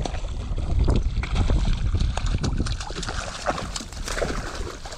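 Water splashing and sloshing as a rubber-mesh landing net is swept through shallow bay water and lifted out with a fish thrashing inside, in a run of short, irregular splashes. A low wind rumble on the microphone runs underneath.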